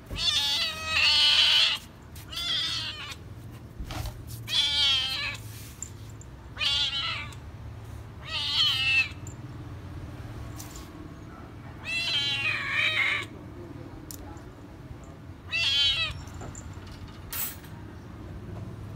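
A domestic cat meowing loudly and insistently, begging for food: about seven drawn-out, wavering meows spaced a second or a few seconds apart.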